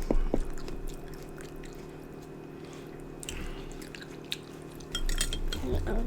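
Close-up eating sounds: wet chewing and smacking with scattered small clicks, busier near the start and again about five seconds in, over a faint steady hum.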